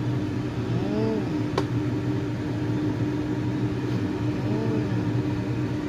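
Steady low mechanical hum, like a motor or fan running, with one sharp click about one and a half seconds in.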